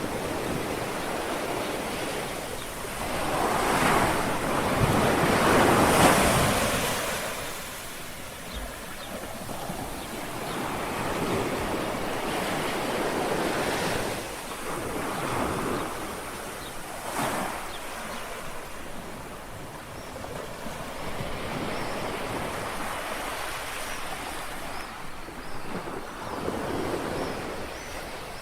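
Small sea waves lapping and washing on the shore, each wash swelling and fading, the biggest a few seconds in.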